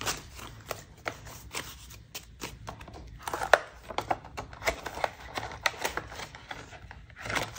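Paper banknotes rustling and crinkling as they are handled and tucked into a cash envelope in a binder. Envelope pages are flipped, giving irregular small crackles and clicks and a fuller rustle near the end.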